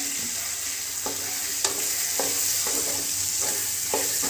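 Small onions, tomatoes and dried red chillies sizzling in oil in an aluminium kadai, with a spatula stirring through them and knocking and scraping against the pan about every half second.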